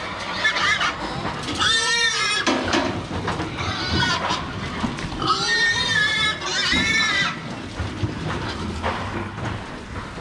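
Domestic pigs squealing as they are caught and pushed into a metal crate. The loud, high-pitched squeals come again and again, about every second and a half.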